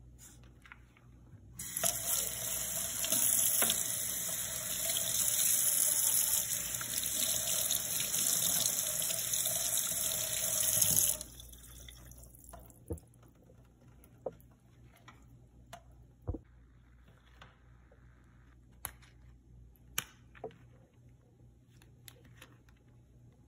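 Kitchen tap running water into a stainless steel sink, starting about two seconds in and shutting off sharply about eleven seconds in. After that, scattered light clicks and taps as the metal sink stopper is handled and scraped.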